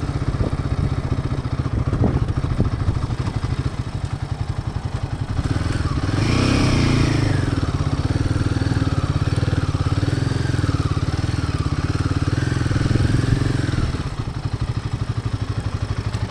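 Royal Enfield motorcycle's single-cylinder engine and exhaust, heard from the bike while riding, with a steady dense thump. From about six seconds in it gets louder and its pitch rises and falls with the throttle. It eases back a couple of seconds before the end.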